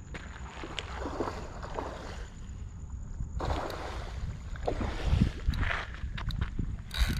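Water sloshing and gurgling in irregular splashes over a steady low wind rumble on the microphone, getting louder about five seconds in.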